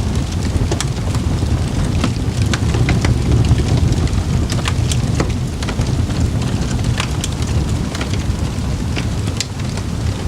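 Campfire crackling: irregular sharp pops and snaps from burning wood, several a second, over a steady low rumble of the flames.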